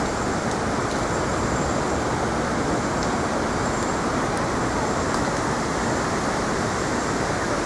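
Steady city traffic noise: an even, unbroken wash of sound with no single vehicle standing out.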